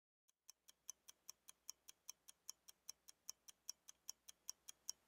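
Faint, fast ticking of a clock, about five ticks a second in an alternating louder-softer tick-tock, starting about half a second in.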